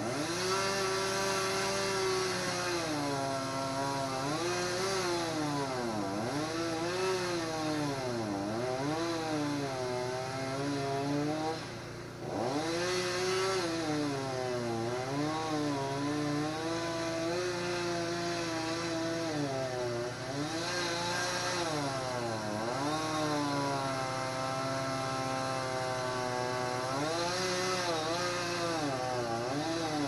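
A small engine running steadily at high speed, its pitch dipping and recovering every few seconds, over a lower steady hum. It cuts out briefly near the middle.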